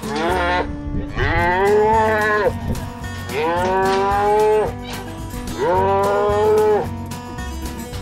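Calves bawling in a pen: a short moo at the start, then three long moos of a bit over a second each. Faint background music runs underneath.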